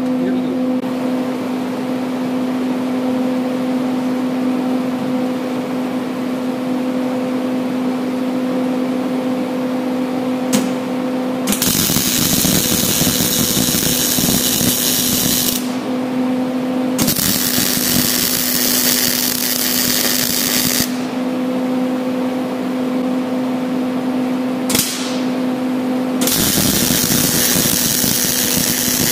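A welding machine hums steadily, then three stretches of electric arc welding crackle and hiss, each a few seconds long, beginning about 11 seconds in, as a bead is laid on a shortened, preheated steel axle. Between the welding runs the hum comes back.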